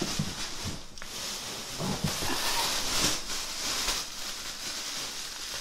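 Plastic bag rustling and crinkling as it is rummaged through and opened to pull toys out of a packed box.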